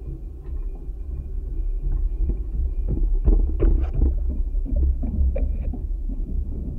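Boardwalk vibration picked up by contact microphones clipped to the planks: a steady low rumble, with a cluster of irregular knocks and creaks between about two and a half and six seconds in.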